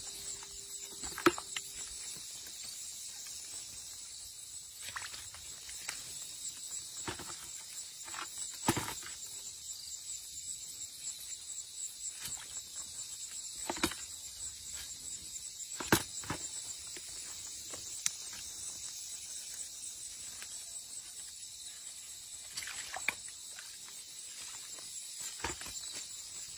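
Steady high-pitched chorus of night insects such as crickets, with a few sharp clicks and knocks scattered through it, the loudest about a second in and near the middle.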